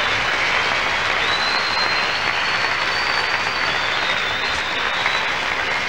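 Concert audience applauding and cheering at the end of a song, with long high whistles drifting above the clapping.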